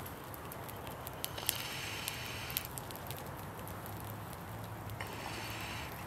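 A glass bong being hit twice, a steady bubbling draw lasting about a second each time, about a second and a half in and again about five seconds in. A wood fire crackles faintly throughout.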